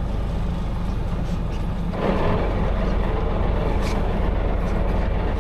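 Fishing boat's engine running steadily with a low hum, with a louder rushing noise joining it suddenly about two seconds in.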